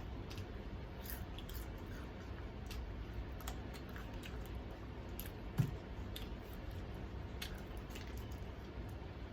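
Close-up mouth sounds of someone chewing fried chicken: scattered soft clicks and smacks. One short low thud about five and a half seconds in.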